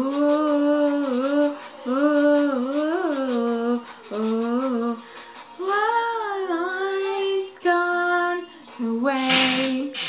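A young woman singing wordless vocal runs, gliding between notes and holding some of them. Near the end there are two loud breathy noises.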